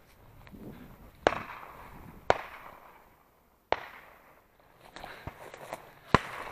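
Four shotgun shots at uneven spacing, each followed by a short trailing echo, with a few lighter clicks between the third and fourth.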